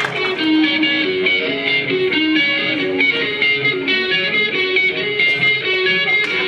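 Guitar-led band music: a melody of picked notes over chords.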